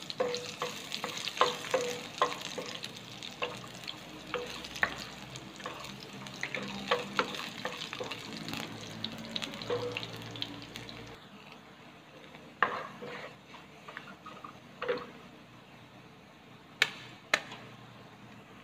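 Chopped garlic sizzling in hot oil in a nonstick frying pan while a wooden spatula stirs it, scraping and clicking against the pan. The sizzle grows quieter a little past halfway, with a few sharp taps near the end.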